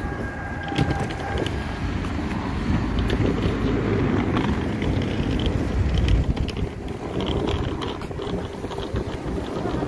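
Wind buffeting a handheld phone's microphone as a rumbling, uneven roar, over outdoor street ambience with scattered small clicks.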